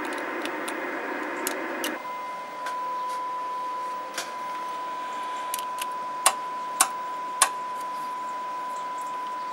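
Radio receiver hiss that about two seconds in gives way to a steady 1 kHz test tone, a signal from the test set being received during a preamp check. Three sharp clicks come near the end, under a second apart.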